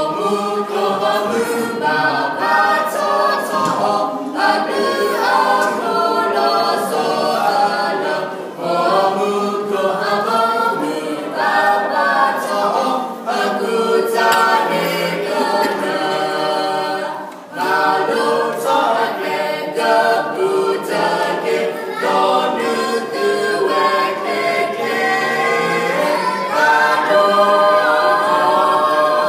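Mixed vocal quartet of two men and two women singing unaccompanied from songbooks, with a brief pause between phrases a little past halfway.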